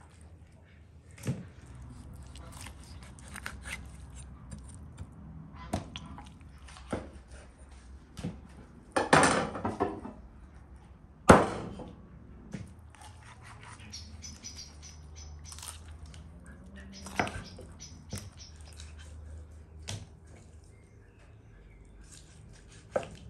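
Kitchen knife cutting up a raw chicken on a wooden chopping board: scattered knocks of the blade striking the board, with a crackling crunch of joints being cut. One sharp chop near the middle is the loudest.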